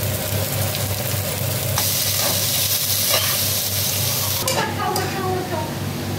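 Chopped onions sizzling in hot oil in a steel kadai while a metal slotted spoon stirs them, the sizzle growing louder about two seconds in, with a sharp clink of the spoon against the pan a little after four seconds. A steady low hum runs underneath.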